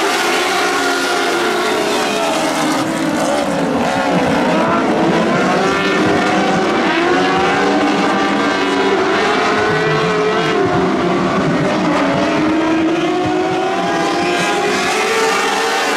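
A pack of winged lightning sprint cars racing on a dirt oval. Many engines run at high revs together, their pitches overlapping and rising and falling as the cars lift and get back on the throttle through the turns.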